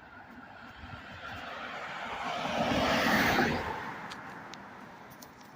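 A car passing by: its road noise swells to a peak about three seconds in, then fades away.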